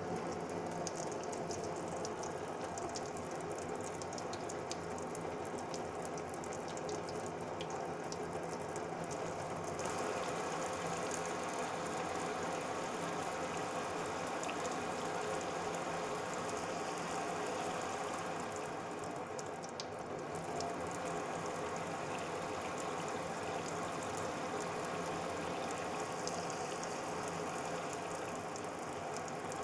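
Water running steadily and without a break, with fine clicking over the first ten seconds or so.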